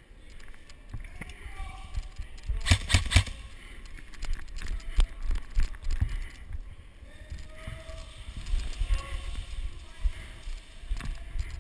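Movement and handling noise on a body-worn camera as an airsoft player moves through a concrete building: low bumps and rustle, a quick rattle of sharp clicks about three seconds in, and faint distant voices.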